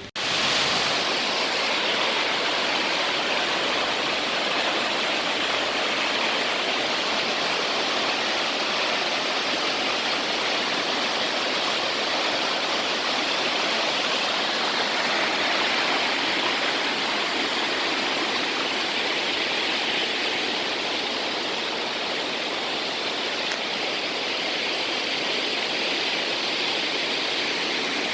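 Waterfall water rushing and cascading over rock: a steady, full rush of water with no let-up.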